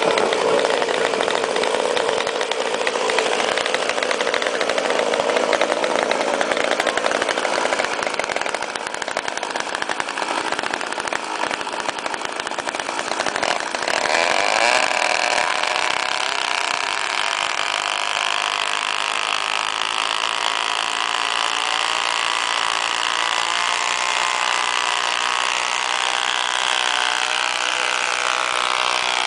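Small petrol engines of gas-powered RC drag cars running with a continuous buzz. About halfway through the sound changes to a single engine idling at a steady pitch.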